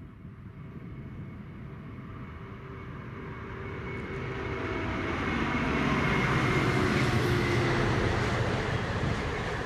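Class 66 diesel-electric locomotive, with its two-stroke V12 engine, hauling a container freight train. It approaches and grows steadily louder, is loudest as it passes about six seconds in, then gives way to the rumble of the container wagons rolling by.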